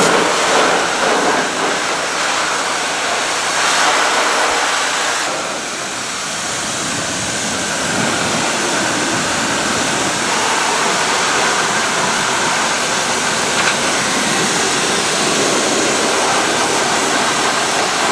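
Pressure-washer water jet hissing steadily as it sprays down a car's engine bay.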